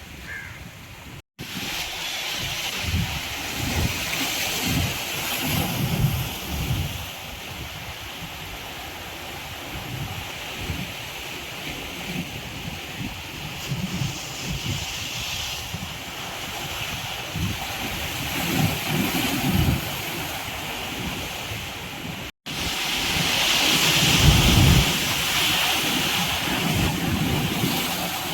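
Sea waves breaking and washing ashore in a steady surf hiss, with wind buffeting the microphone in low, irregular gusts. The sound cuts out completely twice for an instant.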